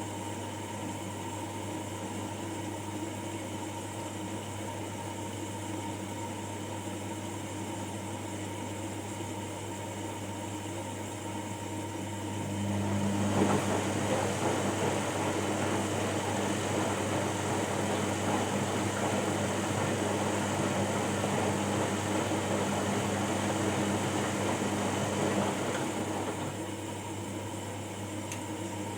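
Washing machine running mid-cycle with a steady hum; about twelve seconds in, a louder rushing sound with a steady low tone joins for around thirteen seconds, then stops and the quieter hum carries on.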